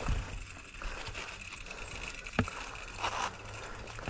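Mountain bike rolling along a dirt trail: a steady low rumble with a sharp knock from the bike at the start and again about two and a half seconds in, and a short hiss near the end.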